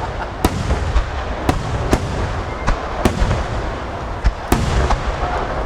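Japanese festival fireworks: a rapid starmine barrage of aerial shells bursting in quick succession. Sharp cracks come about every half second over a continuous low rumble of overlapping booms.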